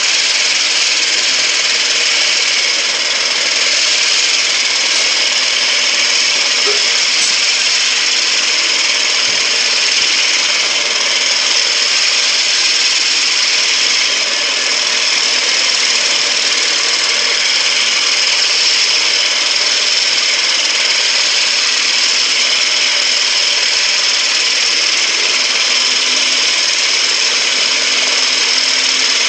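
Klindex Exterma stand-up concrete edger grinder running steadily, its counter-rotating grinding heads grinding. A loud, even, high-pitched grinding noise.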